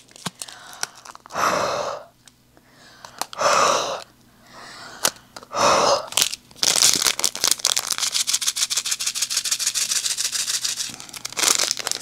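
Small plastic bags of diamond-painting drills crinkling and rustling as they are handled, a dense crackle through the second half, after three short breathy rushes of noise.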